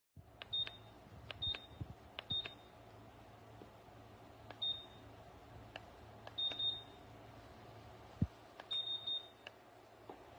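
Oil-filled radiator heater giving a series of short high-pitched beeps and light ticks, in about six separate clusters spread across several seconds, over a faint steady hum.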